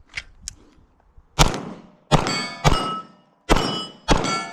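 Five pistol shots about half a second to a second apart, most followed by the ringing clang of a steel plate being hit.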